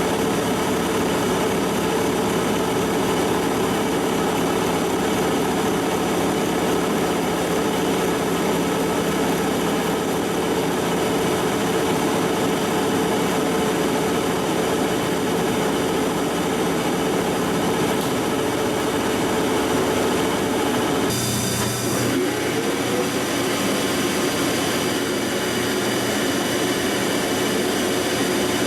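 Large Monarch engine lathe running steadily while hard-turning a hardened steel tractor pinion shaft. The sound shifts abruptly about 21 seconds in, with a brief rising whine just after.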